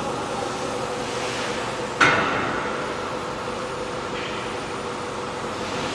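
Steady engine-like running noise, with one sudden loud bang about two seconds in that rings out briefly.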